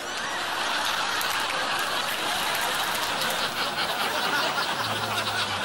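Audience laughter: many people laughing together in a dense, steady wash right after a punchline.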